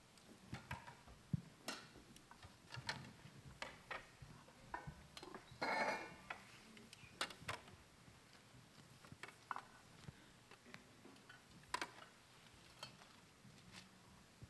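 Scattered light clicks and clinks of communion trays and cups being handled in a large hall, with a brief louder noise a little before the middle.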